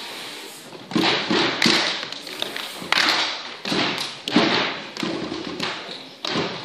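Feet stamping and thumping on a stage floor: a run of irregular heavy steps, some in quick groups of two or three, a fraction of a second to about a second apart.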